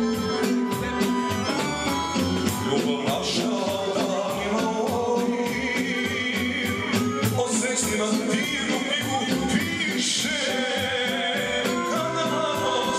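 Serbian folk band music: an accordion-led dance tune with a steady beat and singing over it.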